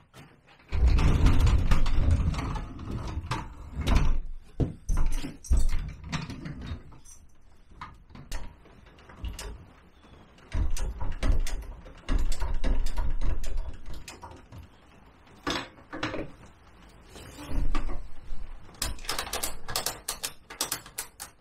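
Clunks, knocks and rattles of a scooter being set up and strapped down on a motorcycle lift, with a quick run of sharp clicks near the end.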